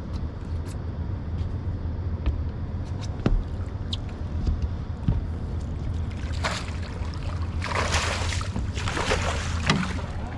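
A hooked flathead catfish splashing at the water's surface as it is brought to the landing net, in several loud bursts from about six seconds in until near the end, over a steady low hum.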